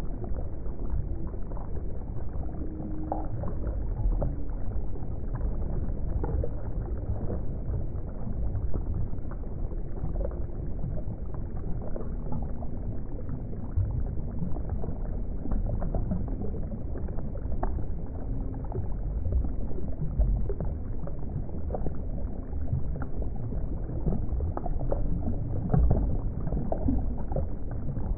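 Steady water ambience: a low rumble of moving water with bubbling and small scattered blips and clicks.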